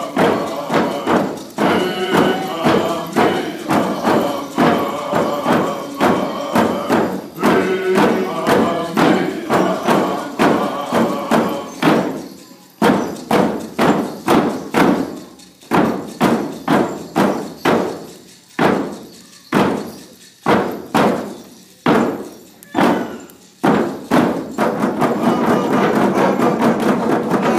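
Group of singers chanting a Kwakwaka'wakw dance song over steady, evenly spaced drum beats. About twelve seconds in the singing stops and the drum goes on alone in separate strikes with gaps between them, giving way near the end to a steady wash of crowd noise.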